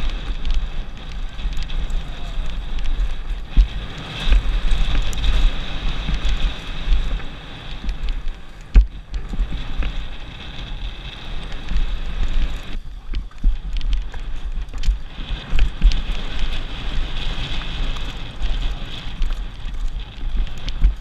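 Wind buffeting a helmet-mounted camera's microphone as a mountain bike descends a rocky trail at speed, with tyre noise and scattered knocks and rattles as the bike hits bumps; one sharp knock about nine seconds in.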